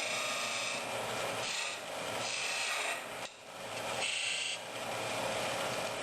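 Wood turning on a lathe: a tool rasping against the spinning wood in about four scraping strokes of a second and a half each, with short breaks between them.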